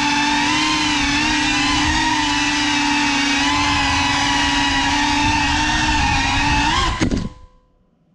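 Cinewhoop FPV drone's motors and ducted propellers whining steadily in flight, the pitch wavering with the throttle. About seven seconds in the pitch briefly rises, a sudden knock comes as the drone crashes, and the motors cut out within half a second.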